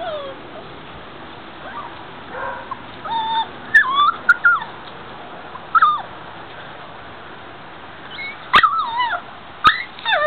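Five-week-old Schapendoes puppies whimpering and yipping in short, high calls that bend up and down in pitch. The calls come in small groups about three, four and six seconds in, then a busier run near the end.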